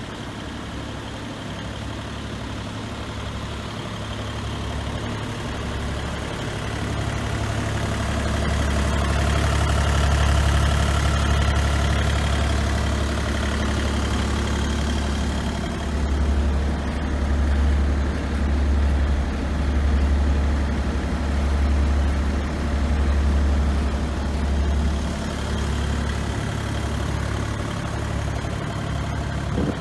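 Bobcat E35 compact excavator's diesel engine running steadily. It grows louder about a third of the way in, then swells and dips about once a second through the latter half.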